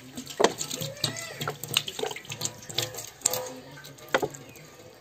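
Cooking oil poured in a thin stream from a plastic pouch into a large empty metal pot, splattering and trickling on the bottom in quick irregular splashes that die away about four seconds in.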